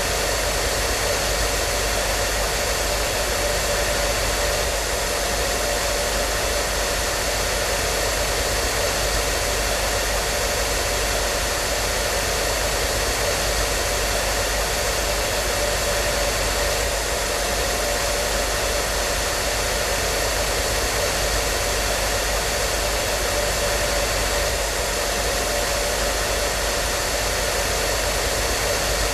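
Hair dryer running steadily, a constant rush of air with a few faint steady tones from its motor and fan and no change in level.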